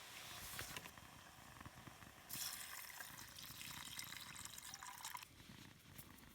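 Water being poured into a container. A light splash comes first, then a steady pour for about three seconds that rises in pitch near the end and cuts off suddenly.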